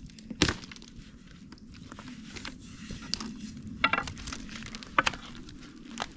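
Long thin wooden rolling pin working a sheet of flatbread dough on a floured wooden board: a few sharp knocks of the pin against the board, the loudest about half a second in and others near four and five seconds in, with soft rustling of the thin dough between them.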